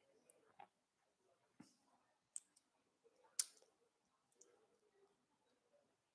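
Near silence broken by a few short, sharp clicks at uneven intervals; the loudest comes about three and a half seconds in.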